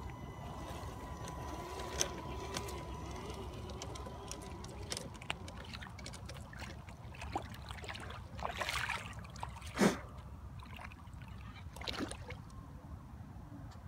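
Small water sounds at the edge of a lake: gentle lapping and trickling with a few light splashes and clicks, the loudest a sharp knock about ten seconds in. A faint steady high tone runs through the first few seconds.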